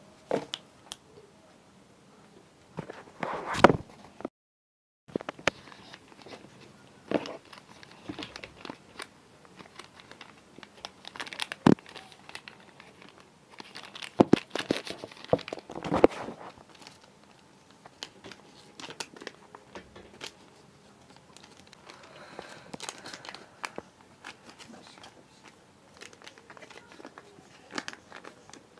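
Sheet of paper being folded and creased by hand: irregular rustling and crinkling with small sharp clicks and taps, in busier clusters separated by quieter stretches. A brief total dropout comes about four seconds in.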